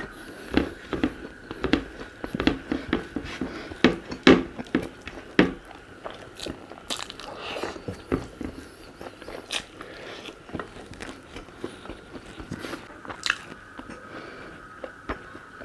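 Close-miked mouth sounds of a person eating: irregular chewing, lip smacks and crunchy bites, several in quick runs and then sparser. A faint steady whine runs underneath.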